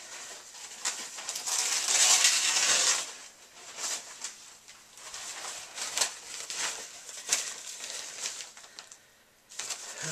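Packaging being handled while the iMac box is unpacked: a crinkling, rustling stretch for about a second and a half, then scattered clicks, taps and shorter rustles.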